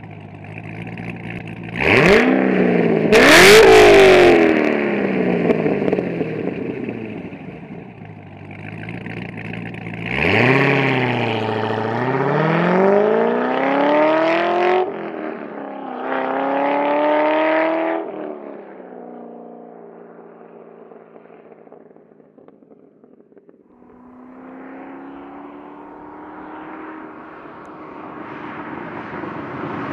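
Cammed C6 Corvette Z06's 7.0-litre LS7 V8, with a custom-grind camshaft, Corsa X-pipe and Borla ATAK mufflers, revving hard and pulling away, its exhaust note climbing steeply and dropping back again and again as it shifts up through the gears. The sound fades as the car draws away, then grows louder again near the end.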